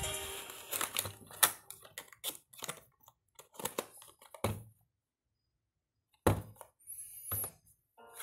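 Small cardboard-and-plastic toy box being handled and opened: a run of sharp clicks, taps and crackles, a silent gap of about a second and a half past the middle, then a few more knocks.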